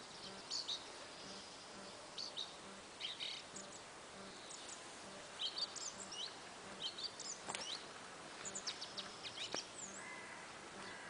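Wild birds chirping and singing in short, scattered calls over a steady outdoor background hiss, with a couple of faint clicks in the second half.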